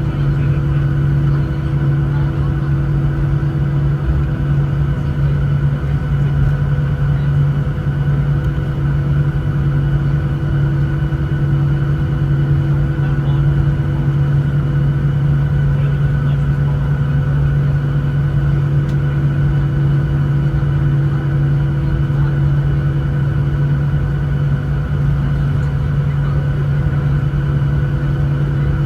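Cabin noise of a Boeing 737-900ER taxiing with its CFM56-7B engines at idle: a steady low drone with a strong hum and a few fainter held tones above it.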